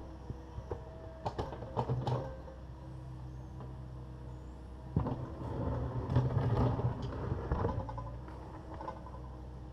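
Takeuchi TB260 excavator's diesel engine running steadily, with two spells of clunking and scraping about a second in and from about five to eight seconds in, as the engine takes load while the bucket works broken concrete.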